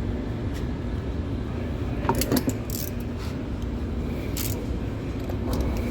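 Light metallic clinks and knocks of tools and the oil filter housing being handled, loudest in a short cluster about two seconds in, over a steady low background rumble.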